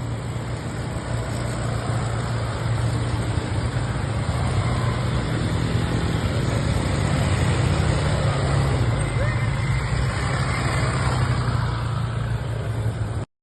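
ATV engine running with a steady low drone under rough noise. It cuts off suddenly near the end.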